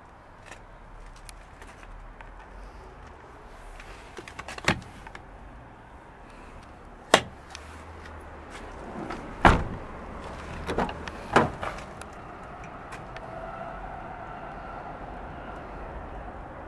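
A handful of sharp clunks and knocks, spread across several seconds with the loudest about halfway through, from the Honda Odyssey's doors and interior fittings being handled. A low steady hum runs underneath.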